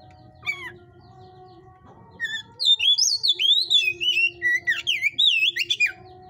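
Oriental magpie-robin (kacer) singing. A single short call comes first, then a loud, rapid, varied run of whistled notes sliding up and down, in the energetic 'hot-type' style.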